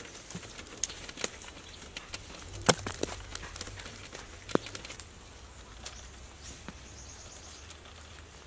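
Quiet outdoor forest ambience with scattered short, sharp knocks and clicks, the loudest almost three seconds in, and a faint high bird-like chirp near the end.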